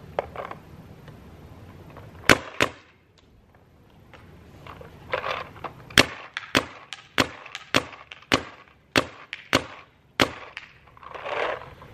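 Dye DM6 paintball marker firing single shots, each a sharp pop of air: two close together about two seconds in, then after a pause eight more at a steady pace of under two a second. The shots are fired over a chronograph while the velocity is being turned up.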